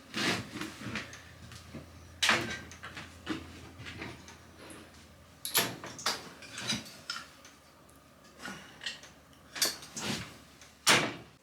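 Metal clunks and knocks as a wood lathe's tool rest is loosened, moved along the lathe bed and locked back in place, about six sharp knocks spaced a second or more apart.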